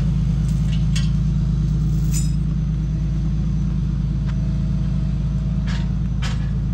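Engine of a 1989 Ford-chassis church bus idling: a steady low rumble with a fast, even flutter. A few light clicks and clinks sound over it.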